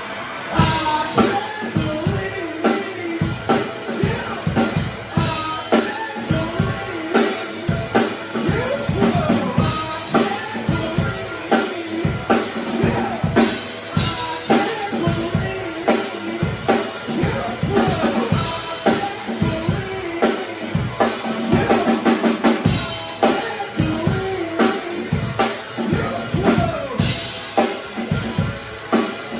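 Live band playing a song: a drum kit keeps a steady beat with bass drum and snare hits, under a melody line that bends up and down in pitch.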